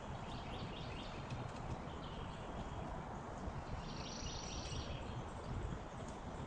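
Outdoor background noise with small birds chirping faintly, a brighter run of rapid chirps about four seconds in.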